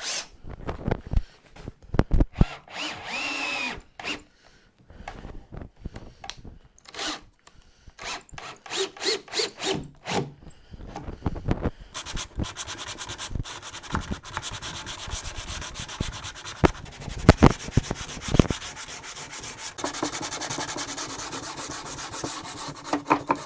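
Hand sanding of a wooden cabinet frame with a sanding block: quick, even rasping back-and-forth strokes of sandpaper on wood that start about halfway through. Before that, scattered knocks and clatter as the wooden pieces are handled.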